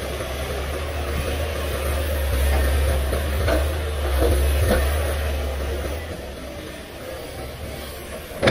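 Komatsu PC500LC hydraulic excavator's diesel engine working hard, its low drone swelling as the loaded bucket swings over and empties into the dump truck, then easing off near the end as the empty bucket swings back. A few knocks come in the middle as the load drops into the truck bed.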